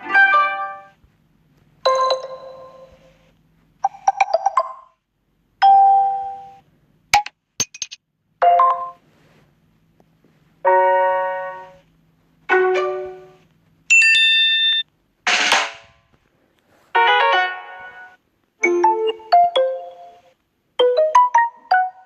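Samsung Galaxy S7 edge stock notification tones played one after another: about a dozen short chimes and jingles, each about a second long and fading out, one every couple of seconds. Most are bright pitched tones; one near the middle is a brief swishing sound, and a couple of sharp clicks come about seven seconds in.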